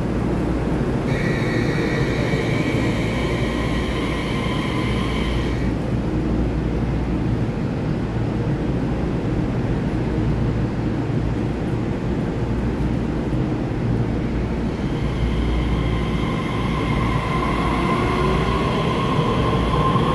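EMU3000 electric multiple unit moving off from an underground station platform: a steady low rumble, with a steady high tone for about four seconds near the start. In the last few seconds the motor whine climbs in pitch as the train picks up speed.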